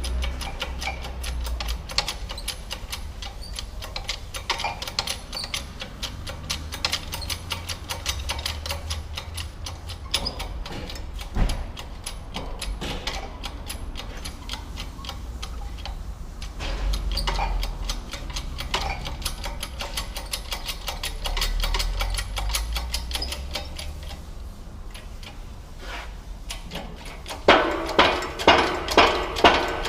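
Ratchet wrench clicking rapidly as fasteners are turned on the front wheel hub assembly. Near the end come steady hammer blows on metal, about two a second, each ringing.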